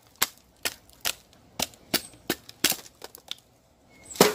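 Machete being batoned down through a dry, dead castor-bean stick: a series of sharp wooden knocks, about two to three a second, then a short pause and a louder knock near the end as the stick comes apart.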